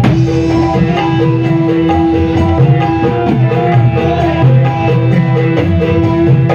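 Dangdut band music through a large sound system: kendang played by hand over a bass line, with a long held melody note and shorter notes above it.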